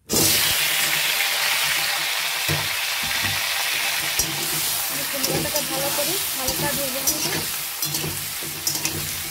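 Pumpkin pieces sizzling in hot oil in a metal wok, with a slotted metal spatula scraping and clicking against the pan as they are stirred.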